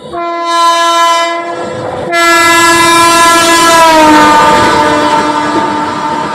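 Train horn sounding, a blast of about two seconds followed at once by a longer one, with the passing train clattering on the rails. The horn's pitch drops about four seconds in as the train goes by, then the horn fades into the rumble of the train.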